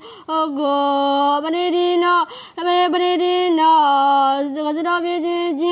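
A single voice chanting a Burmese Buddhist sermon in a melodic, sing-song style, holding long steady notes, with brief breaks for breath.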